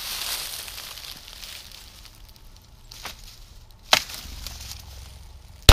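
Footsteps crunching through dry leaves and brush, a sharp snap about four seconds in, then a single very loud shotgun shot at the very end.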